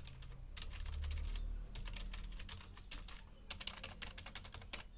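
Keys of a Zebronics Zeb-K20 wired USB keyboard being typed on quickly, in runs of rapid clicks broken by short pauses, as every key is tried out to see that it works.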